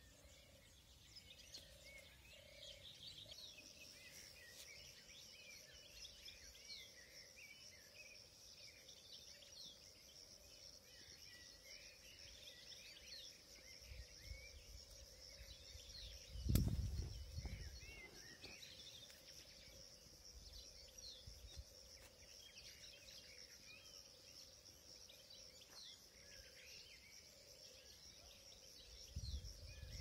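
Faint outdoor chorus of small songbirds chirping, with a steady high buzz coming in about three seconds in. A single loud thump comes about halfway through.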